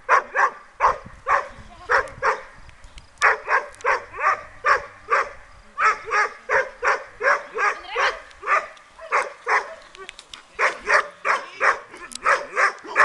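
A dog barking over and over, about three barks a second, with a few short pauses.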